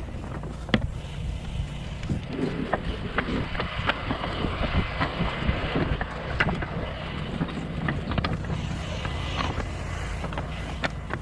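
Steady low engine drone from pressure-washing equipment, with irregular clicks and knocks of footsteps and gear on clay roof tiles.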